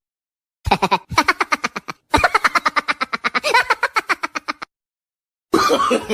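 A laughing sound effect: a rapid, staccato cackle of about eight pulses a second, in three runs that break off briefly about a second and two seconds in, stopping a little over four seconds in. Another laugh starts just before the end.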